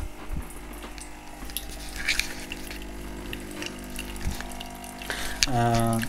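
Tassimo Vivy pod machine brewing: its pump hums steadily as water runs through the pod into the cup.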